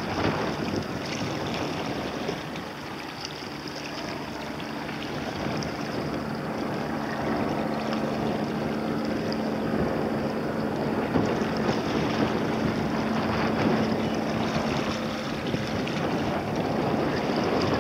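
Helicopter in flight, a steady engine and rotor drone with a faint held hum, mixed with wind noise on the microphone.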